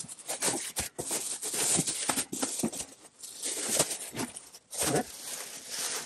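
Plastic bags crinkling and rustling in irregular bursts as bagged comic books are pulled from a cardboard box and handled.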